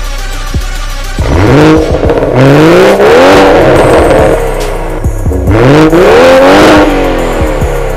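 BMW M140i's 3.0-litre turbocharged straight-six, breathing through an Akrapovic Evolution exhaust, revved twice while stationary. Each time the pitch climbs for about two seconds and then falls back.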